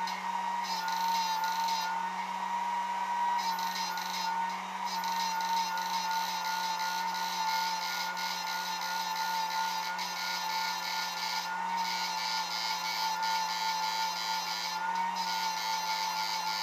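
Homemade high-power inverter running under a lamp load: a steady high-pitched electrical whine that wavers slightly in pitch now and then, over the whir of its high-speed cooling fan.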